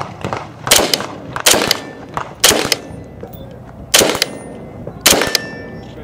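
AR-15 carbine firing five single aimed shots, unevenly spaced about one to one and a half seconds apart, each with a short echoing tail and a faint high ring after some of them.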